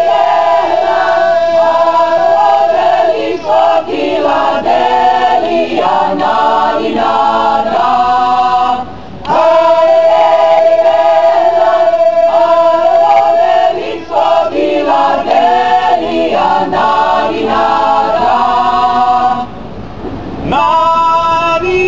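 A small group of men and women singing together a cappella in harmony, with long held notes. The singing breaks off briefly about nine seconds in and again near the end.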